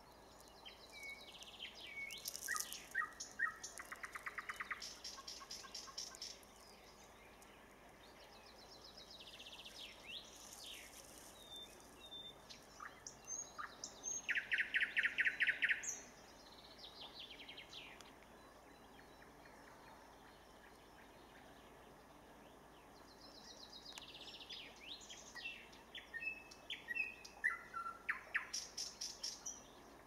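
Nightingale singing in three spells of varied song separated by pauses, each built of fast runs of repeated notes and clear whistled notes. The loudest is a rapid, even run of repeated notes about halfway through.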